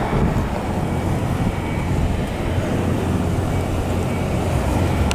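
2002 Chevrolet 1500 pickup's engine idling steadily: a low, even rumble.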